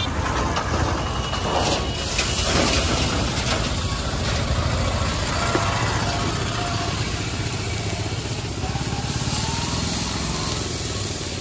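Water hissing and sizzling on a hot dosa griddle (tava), starting suddenly about two seconds in and holding steady, over a constant low rumble.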